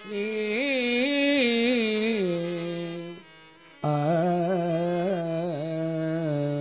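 Carnatic-style devotional singing: the singer holds the last syllable of a Murugan verse with ornamented turns of pitch for about three seconds. After a brief break, a sustained melody instrument picks up the tune in steady, stepped notes.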